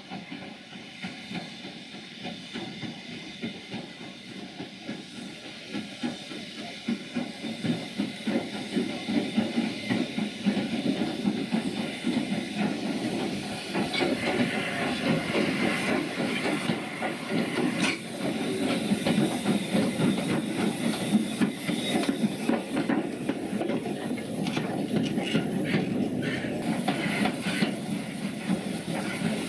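Steam locomotive moving slowly alongside coaches with steam hissing, growing louder over the first ten seconds or so as it comes nearer, with a few sharp clanks.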